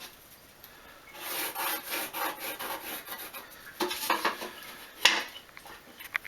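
Pencil drawn along a drywall square, scratching across the paper face of a sheet of sheetrock to mark a cutting line. A few light knocks follow near the end as the square is shifted or set down.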